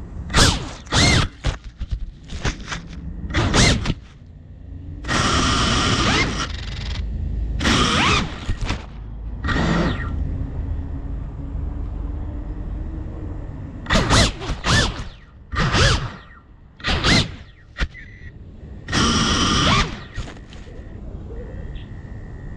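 Small FPV drone's motors and propellers spinning up in short bursts, a dozen or so, with two longer runs of a second or two. A faint steady high whine runs between the bursts.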